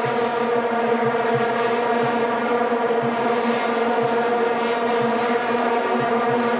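Massed vuvuzelas blown by a stadium crowd, making a loud, steady drone on one pitch without a break.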